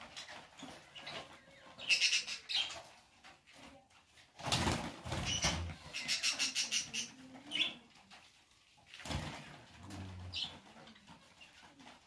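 Small cage birds packed in a wire transport cage fluttering and chirping in short bursts of rapid beats, with a couple of knocks against the cage about four and a half and nine seconds in.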